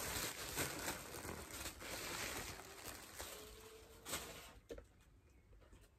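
Tissue paper rustling and crinkling as it is pulled off a wax hand sculpture, with a sharper crackle about four seconds in, then dying away near the end.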